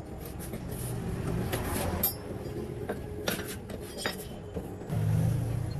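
Light metal clinks and knocks, a few separate strikes, over a steady background; a low hum comes in near the end.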